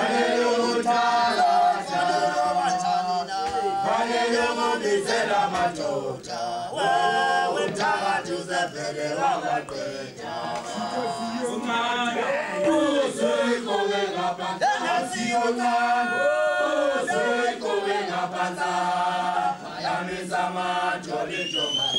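Choir singing a chant without instruments, in continuous phrases.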